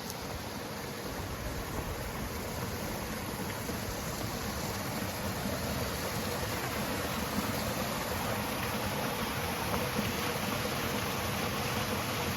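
Steady rushing of falling water from a waterfall, an even hiss and roar without breaks that grows slightly louder.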